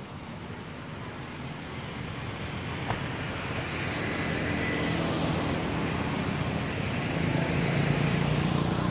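Motor vehicle engine hum with a rushing noise, growing gradually louder as it approaches.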